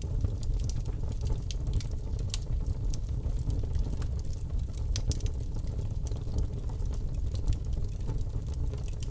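A low rumble with irregular crackling clicks scattered through it.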